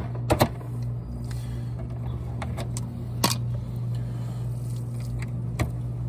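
Sharp clicks and taps of a hand tool on the wiring inside a pool heat pump's open electrical panel: two close together just after the start, one about three seconds in and one near the end. A steady low hum runs under them.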